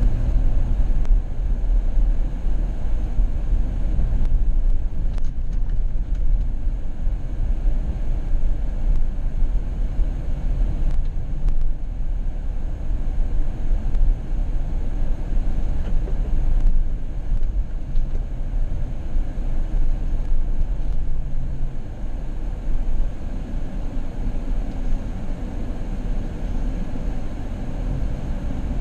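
Steady low rumble of a car running, heard without any speech, becoming a little quieter about three-quarters of the way through.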